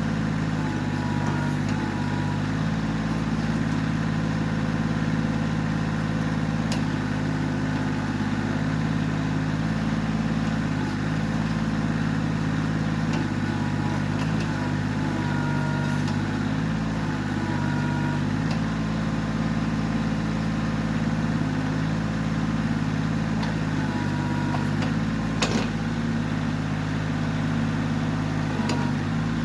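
Kioti CK20S compact tractor's diesel engine running steadily while working a backhoe, its pitch shifting slightly every few seconds.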